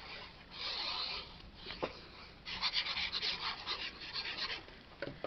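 Fine plastic nozzle of a liquid glue bottle scratching across cardstock in quick strokes as glue is run along the card. There is a light click about two seconds in and a couple of small taps near the end.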